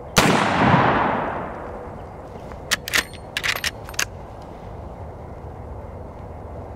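A single shot from a Marlin 1895 SBL lever-action rifle in .45-70 Government, the report fading over about a second and a half. About three seconds in comes a quick run of sharp metallic clacks as the lever is worked to eject the spent case and chamber the next round.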